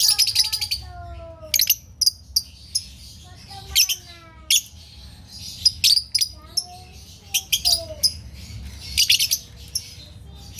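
Fischer's lovebirds chirping and chattering: repeated bursts of rapid, shrill chirps, with lower, falling calls in between.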